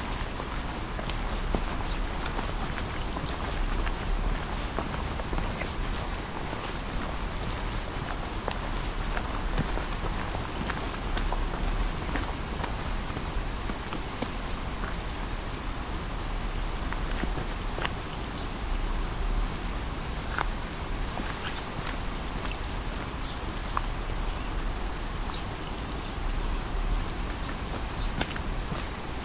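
Steady rain falling on pavement and foliage: an even rush with many scattered single drops ticking sharply close by.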